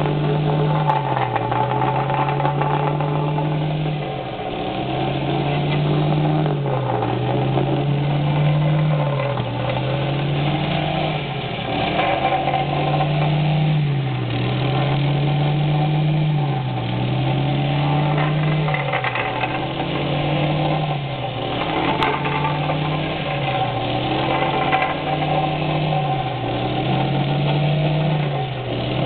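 Engine-driven vibratory plate compactor running as it is walked over fresh asphalt patches, a loud, steady drone whose pitch rises and falls about every three to four seconds. A single sharp click sounds near the end.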